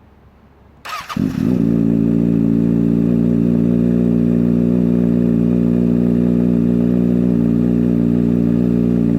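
A Kawasaki ZX-6R 636's inline-four, fitted with an M4 slip-on muffler, is cold-started. The starter cranks briefly about a second in, then the engine catches and settles into a loud, steady idle.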